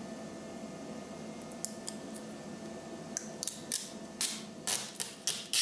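Protective masking film being peeled by hand off a cast acrylic sheet: a run of short crackling rips, faint at first about a second and a half in, then louder and closer together toward the end.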